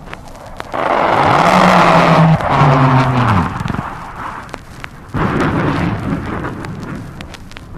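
A military sound effect played from a vinyl record: a sudden loud rushing roar with a low tone that drops in pitch, then a second sudden roar about five seconds in that fades away. Record surface crackle clicks throughout.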